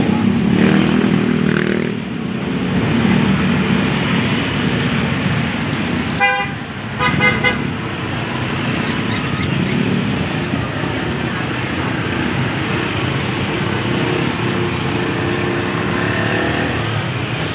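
Street traffic dominated by motorcycles and motorcycle tricycles running past close by. A few short horn beeps come about six to seven seconds in.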